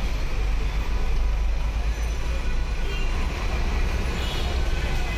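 Steady street traffic noise with a constant deep rumble.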